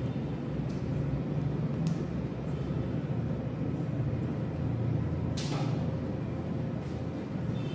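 A steady low background hum. Metal surgical instruments, a needle holder and forceps used for suturing, give a sharp click about two seconds in and a brief scrape about five and a half seconds in.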